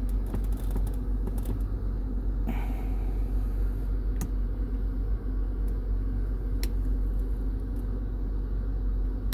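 A 2002 Chevy Tahoe's engine idling with a steady low rumble, and several sharp clicks of the dash-mounted LED toggle switches being flipped.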